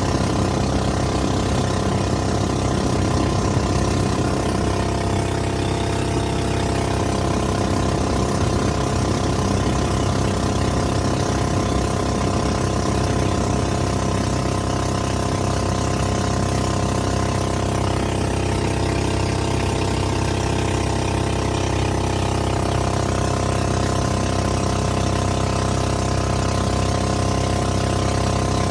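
A boat's 13 hp engine running steadily, its pitch dipping and recovering slightly a couple of times.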